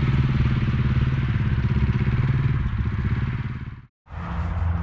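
Small motorcycle engine running as the bike rides off across the field, growing gradually fainter over about three and a half seconds. It cuts off suddenly about four seconds in, followed by a steadier low hum.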